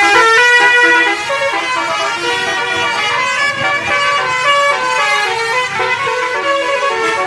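Basuri telolet horns on buses in convoy: multi-tone musical bus horns playing overlapping runs of stepped notes, several at once, loudest in about the first second.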